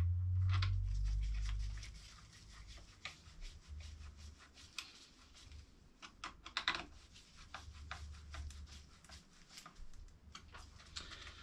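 Small scattered clicks, taps and scrapes of a screwdriver and a plastic cable clip being worked in an electric motor's terminal box. A low rumble in the first couple of seconds fades out.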